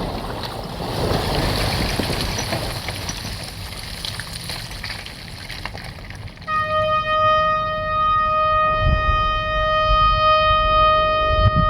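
Noisy rumble and rattle of broken rock and debris settling after a rock blast, fading over the first several seconds. About six and a half seconds in, one long steady air horn blast starts and holds, the signal sounded after the shot.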